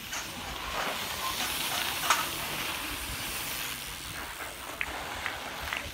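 Bicycle tyres hissing over the loose shale of a cycle speedway track as riders slide round the bend, with a sharp click about two seconds in.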